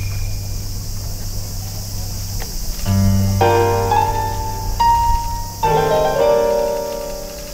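Yosakoi dance music from the performance soundtrack: a low held tone for about three seconds, then sustained piano-like chords come in and change a few times.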